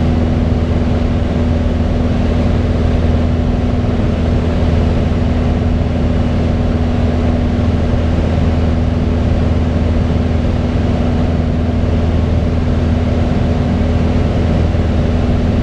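Steady cabin drone of a Piper Cherokee 180G in flight: its four-cylinder Lycoming O-360 engine and propeller running at an even cruise setting, heard from inside the cockpit.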